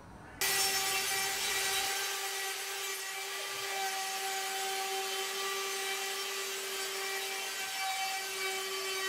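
Router spindle of a home-built 3-axis CNC router cutting, its bit skimming the surface of the wooden waste board to make it flat and true. It starts about half a second in and runs with a steady whine.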